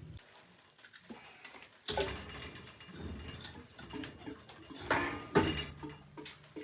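Metal knocks, clicks and scraping of hand tools working on boiler pump piping: a sharp knock about two seconds in, then irregular clatter that is loudest a little past the middle.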